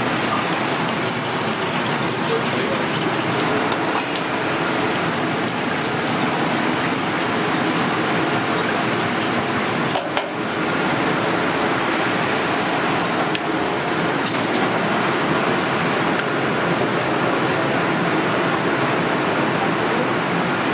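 Steady sizzling of food frying in hot oil, with a brief break about halfway through.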